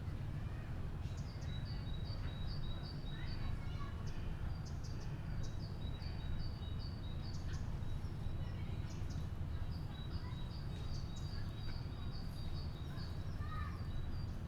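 Steady low rumble of outdoor ambience, with a small bird chirping over and over in short, high, evenly spaced notes. Faint voices come through now and then.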